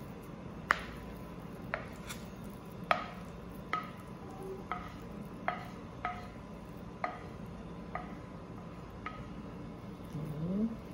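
Mashed potato being scraped with a wooden spatula out of a pan into a glass baking dish: sharp knocks and clinks about once a second, several ringing briefly.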